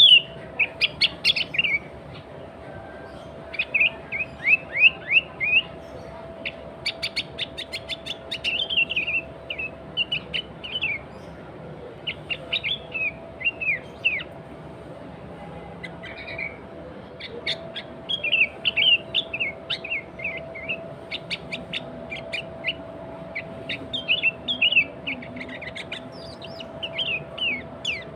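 Sooty-headed bulbul (kutilang) singing in its natural voice without mimicked songs, in repeated short phrases of quick chirpy notes with brief pauses between them. A faint steady hum lies underneath.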